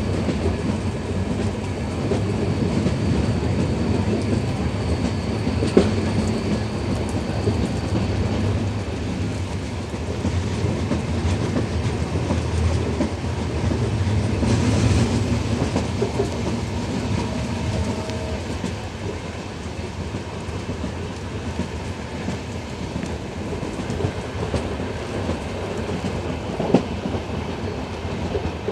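Express passenger train's coaches running over the track, heard from an open door: a steady rumble of wheels on rail with occasional sharp clicks.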